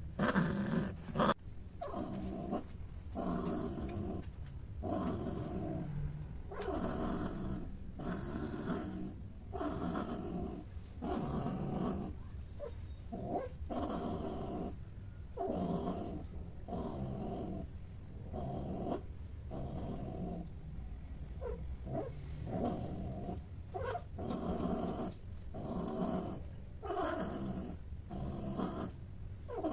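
A cat growling and yowling during mating, in long, low, drawn-out calls that follow one another with short breaks, about one every second or so.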